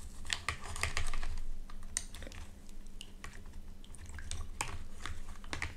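ASMR makeup-removal tools working on the camera lens: irregular clicks and taps over a low handling rumble.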